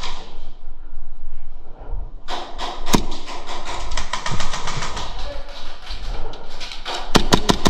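Airsoft guns firing in the arena: a rapid string of sharp clicking pops for several seconds from about two seconds in, then a few louder, separate shots near the end.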